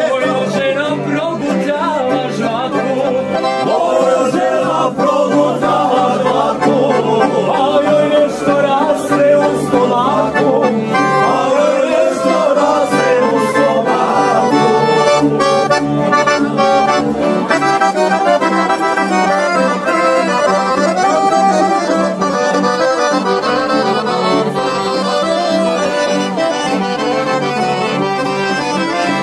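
Live folk music: a men's group singing a Croatian folk song to piano accordion, tamburica and acoustic guitar. The singing gives way to an instrumental passage led by the accordion about halfway through.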